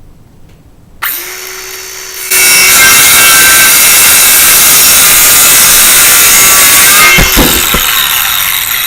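Ryobi brushless cordless jigsaw starting about a second in and running briefly unloaded, then cutting through a poplar plank with a loud, steady sawing noise for about five seconds. A few knocks come as the cut finishes, then the saw runs down.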